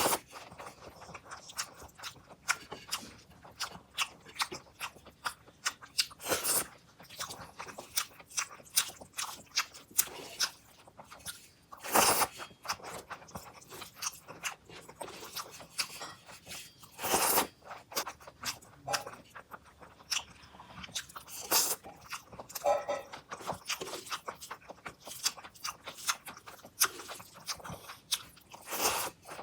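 A person eating close to the microphone: continual chewing and mouth clicks, with a few louder crunching bites about 6, 12 and 17 seconds in.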